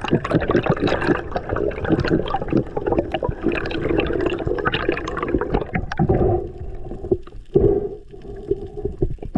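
Water sloshing and bubbling around an action camera, with dense crackling clicks for about six seconds, after which it goes quieter with a few dull thumps.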